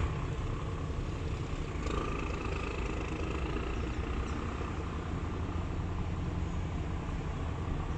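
Steady low outdoor rumble of background noise, with a faint high tone coming in about two seconds in.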